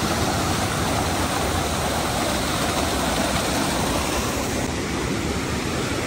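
White water of a small mountain waterfall cascading over rocks into a stream: a steady rush, a little softer in the highs for the last second or so.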